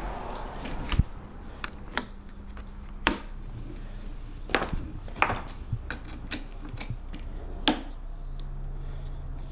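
Irregular sharp clicks and knocks, about a dozen, from lawn mower parts being handled and fitted during assembly.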